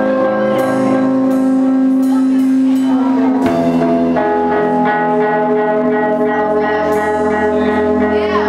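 Rock band playing live: electric guitar chords held and ringing under a series of sharp drum and cymbal hits, with a change to a new chord about three and a half seconds in.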